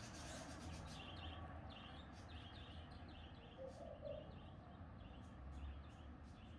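Faint outdoor background with a small bird chirping over and over, about twice a second, and a dove giving two short coos near the middle.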